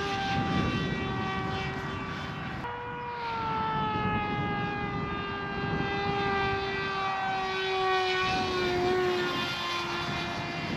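Electric RC plane's SunnySky 2216 brushless motor and 8x4 propeller whining in flight, the pitch sliding slowly down, jumping back up about two and a half seconds in, then sliding down again. Wind buffets the microphone throughout.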